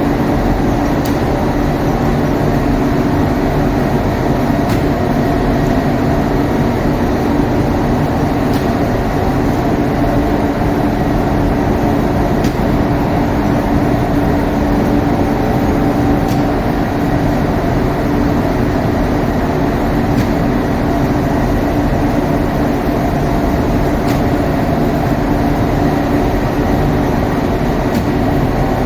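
Steady machine noise: a constant rumble with a low hum, and a few faint ticks every few seconds.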